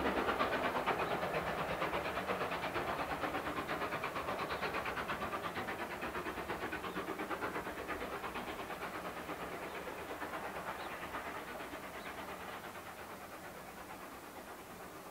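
GWR Modified Hall 4-6-0 No. 6989 'Wightwick Hall' steam locomotive working a train away, its two-cylinder exhaust beating rapidly and regularly and fading steadily into the distance.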